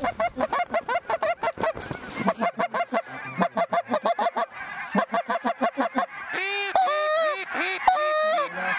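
A flock of geese calling in flight: rapid, overlapping honks, then, from about six seconds in, longer drawn-out calls that rise and fall in pitch.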